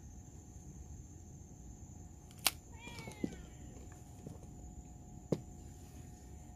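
A short animal call that falls in pitch, about three seconds in, between a few sharp clicks, over a steady faint high-pitched whine.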